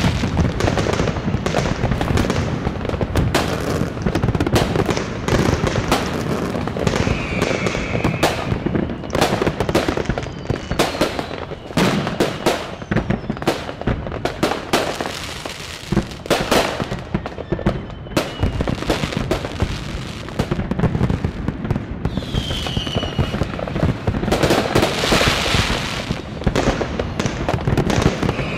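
New Year's fireworks going off all over a city: a dense, unbroken crackle of bangs near and far. A few short whistles rise and fall among them.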